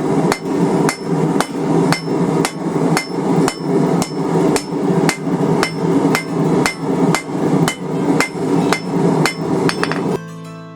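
Hand hammer striking hot steel on an anvil at a steady pace of about two blows a second, drawing down the taper of a slot punch, over a steady rushing noise. The blows stop near the end and music comes in.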